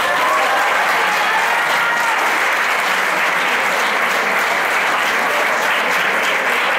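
Theatre audience applauding, a steady, dense clapping of many hands.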